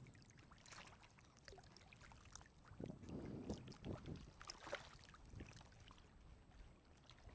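Very faint water sounds: small irregular splashes and trickles, barely above silence.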